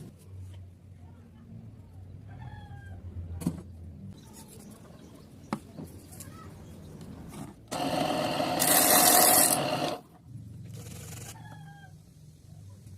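A mini saw cutting through wood in one continuous pass of about two seconds, the loudest sound here, with a few light clicks before it. A rooster crows faintly twice in the background.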